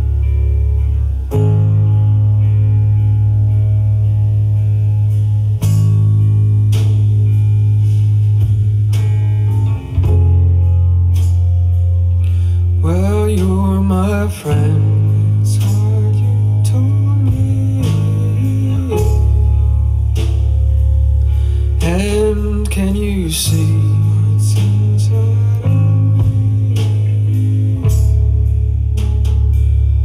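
Recorded music playing through a Frazier Super Texan horn speaker (horn-loaded Atlas compression driver with woofers), picked up by a camera's built-in microphone. It is a guitar song over a heavy bass line that changes note every few seconds, with two short sung phrases, about halfway through and again near the end.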